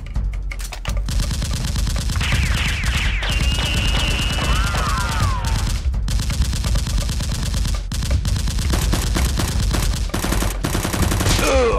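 Automatic gunfire sound effect, rapid continuous shots, dubbed over a Nerf blaster fight. A wavering whine that glides up and down runs over the shots a few seconds in.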